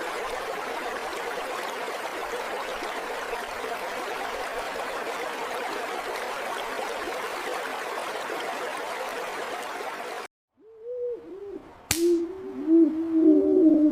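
Steady rush of river water for about ten seconds, cutting off suddenly. Then a string of overlapping rising-and-falling hoots, like owls calling, with one sharp click among them.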